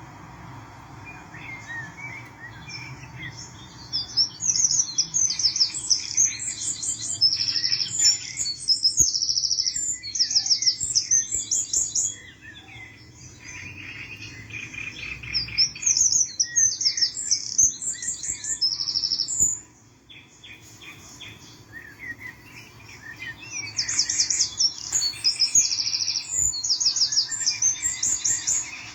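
Songbird singing in long, fast trilling phrases of rapidly repeated high notes, in three loud bouts, with quieter chirps between them.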